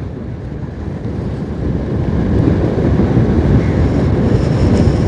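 Wind rush on the microphone mixed with a motorcycle's engine and tyre noise while riding, a low, even rumble that grows louder about a third of the way in.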